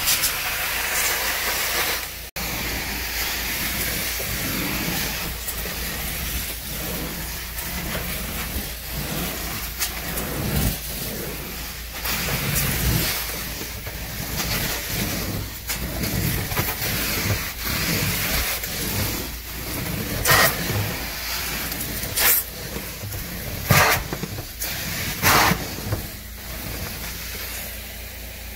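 Carpet-cleaning extraction wand pulled over Berber carpet: a steady rushing hiss of vacuum suction that swells and dips with each stroke, with a few short, louder hisses in the last third.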